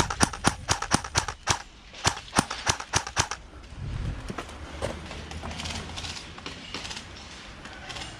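Airsoft guns firing a quick, irregular string of single shots, about a dozen sharp cracks in the first three seconds, then the shooting stops.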